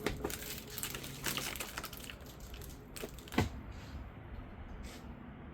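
Handling noises from work on the headlight: a scatter of light clicks and rustles, busiest in the first two seconds, with one sharper click about three and a half seconds in.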